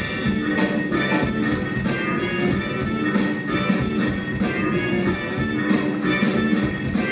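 Live rock band playing an instrumental passage with no vocals: drums keep a steady beat under bass and sustained pitched notes.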